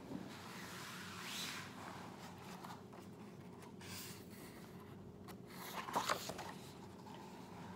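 Faint rustling and handling of a picture book's paper pages, with a couple of short knocks about six seconds in.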